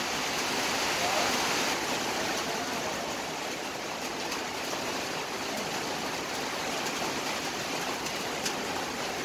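Rosogollas boiling in sugar syrup in a wide metal pan: a steady rushing, bubbling hiss of syrup at a rolling boil.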